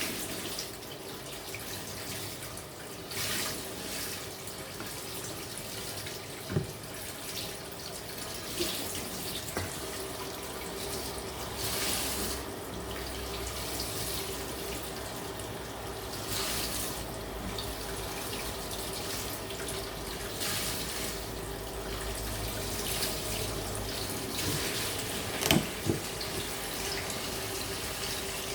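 Kitchen tap running into a sink while a teaspoon is washed, the water surging and splashing every few seconds. A few sharp clicks, the loudest two close together near the end.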